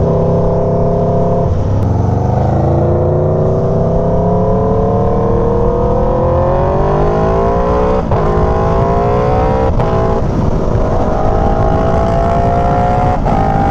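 Aprilia Tuono V4 motorcycle's V4 engine accelerating hard, its pitch climbing steadily. Three quick-shifter upshifts come about eight, ten and thirteen seconds in, each a brief cut and a drop in pitch before it climbs again.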